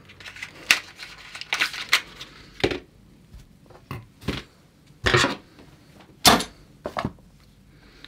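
Hands picking up and handling a small DJI Air Unit module and an MMCX antenna plug: irregular small clicks and knocks of plastic and metal parts, with light rustling, the loudest knock in the last third.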